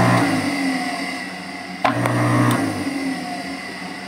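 Repaired 1 hp single-phase submersible pump motor running on test with a steady electric hum. About two seconds in there is a sharp click, then a louder low hum for under a second that eases off. The pump now runs strong after its repair.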